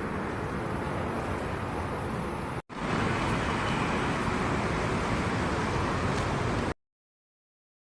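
Steady road traffic noise from vehicles passing on a busy road. It drops out abruptly for a split second nearly three seconds in, then cuts to dead silence near the end.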